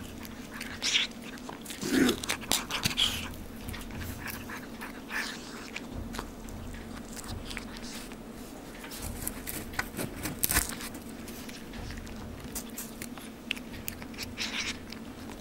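Domestic cat crunching and chewing crumbs of a freeze-dried chicken treat: irregular crisp crunches and clicks, busiest about two seconds in and again around ten seconds.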